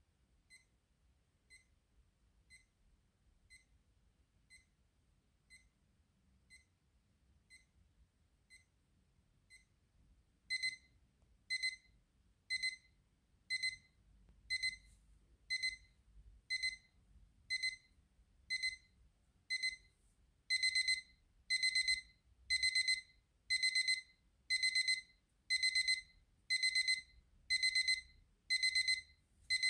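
AURIOL radio-controlled alarm clock's alarm going off: high-pitched electronic beeps about once a second, faint at first, then stepping up much louder about ten seconds in and again about twenty seconds in, with each beep broken into quick pulses in the later stages.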